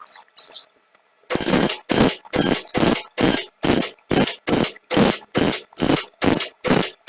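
MIG welder fired in short, evenly spaced bursts of crackling arc, about two or three a second, as the hole is filled with weld a little at a time. The bursts start after about a second of quiet.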